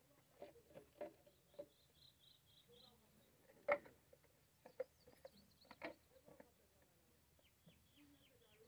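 Quiet, scattered light knocks and taps of PVC drain pipe and fittings being handled and pushed together, the loudest about three and a half seconds in. A short run of quick high bird chirps sounds twice, near the start and near the end.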